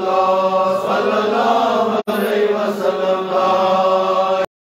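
Devotional dhikr chanting of 'Allah', slow and drawn out, with a steady held tone beneath it. The sound drops out for an instant about two seconds in and cuts off abruptly near the end.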